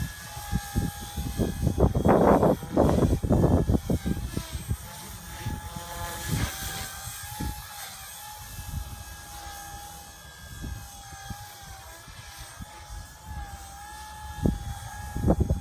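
Blade 180 CFX electric RC helicopter flying, its steady high whine drifting up and down in pitch as the rotor speed changes. Wind buffets the microphone in gusts, loudest about two seconds in and again near the end.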